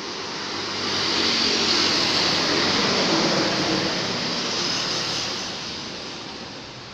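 A motor vehicle driving past on the road: tyre and engine noise swells over the first couple of seconds, then fades away.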